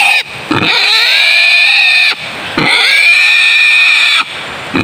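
Snared wild boar squealing in distress while held down with its legs bound: two long, loud, high squeals, each lasting about one and a half to two seconds, with a short break between them.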